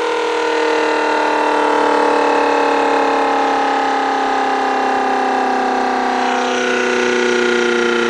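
Homemade 8/12-port Allertor-style siren horn running, sounding a loud two-tone chord whose pitch slowly falls.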